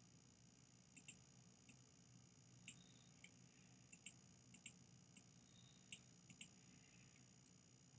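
Computer mouse clicking, about a dozen sharp clicks with several quick double-clicks, over a faint steady low hum.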